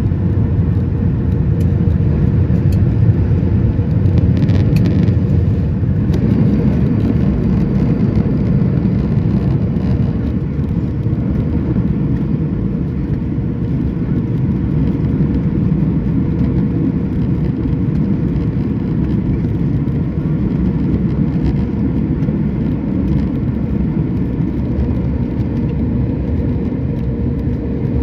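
Cabin noise inside a Boeing 737 MAX 9 during landing: a steady, loud rumble of engines and airflow with a constant hum over it, easing slightly about ten seconds in.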